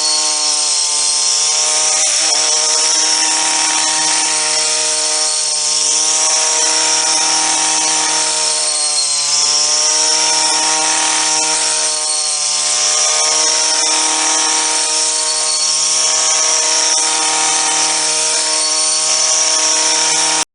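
A motor-driven machine running steadily, a loud humming drone whose pitch wavers slightly, over a rushing hiss.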